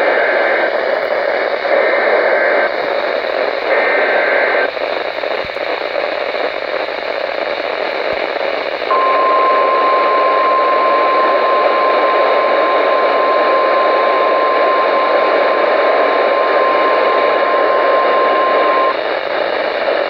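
A RadioShack NOAA weather radio's speaker plays an alert over heavy static hiss. Short bursts of warbling SAME digital header tones come first, the last ending about four and a half seconds in. A few seconds of static follow, then the steady 1050 Hz warning alarm tone sounds for about ten seconds and cuts off. Header and tone are the coded announcement of a severe thunderstorm warning.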